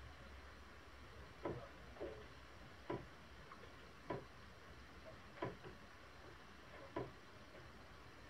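Water dripping slowly after rain: a short, sharp tap about every one and a half seconds, slightly irregular, over faint low background noise.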